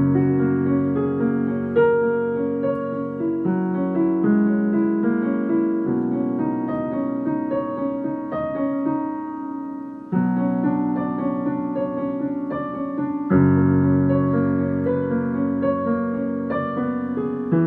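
Piano music: slow, sustained chords and melody notes that ring and fade, with new chords struck every few seconds.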